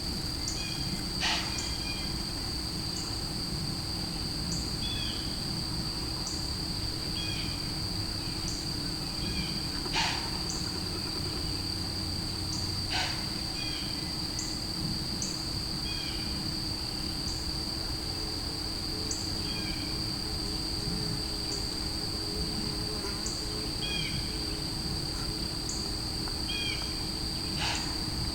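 A short, sharp animal call, heard four times: about a second in, near ten and thirteen seconds, and near the end. Steady insect trilling runs underneath.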